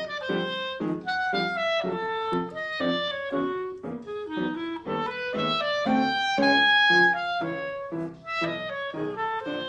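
Clarinet playing a quick melodic line of many short notes over an accompaniment of low chords repeated about twice a second.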